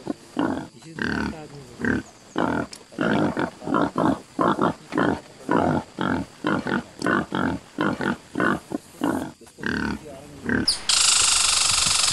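Wild boar grunting in short, repeated grunts, about two to three a second, while foraging. About eleven seconds in, the grunts give way abruptly to a loud, steady hiss.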